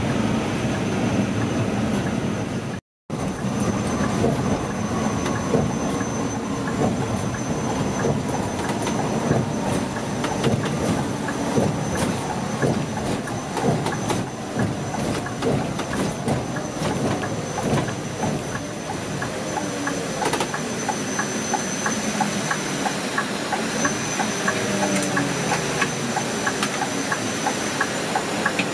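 Scania K410 double-decker coach on the move, heard from inside the cabin: steady engine and road noise with constant small rattles and a thin high whine. The engine note rises a couple of times in the second half as the coach speeds up.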